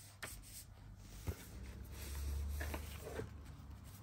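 Paper craft instruction sheets being handled and laid down: faint rustles and light taps, with a soft low rumble for about a second in the middle.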